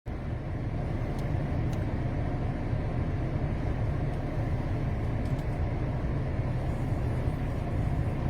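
A steady low rumbling noise with a fainter hiss above it, cutting in abruptly after a moment of dead silence.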